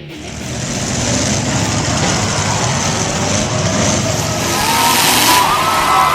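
Demolition derby cars' engines running, a dense wash of engine noise that swells over the first second.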